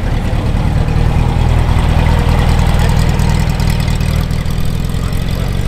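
Porsche 356 convertible's air-cooled flat-four engine running at a low, steady speed as the car drives slowly past and away.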